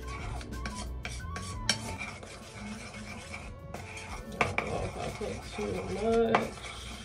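Metal spoon stirring a thick wet clay paste in a ceramic bowl, with repeated clinks and scrapes against the bowl; the loudest scrapes come a little past four seconds and again near the end. It is a mix of Indian healing clay and apple cider vinegar being worked into a face mask.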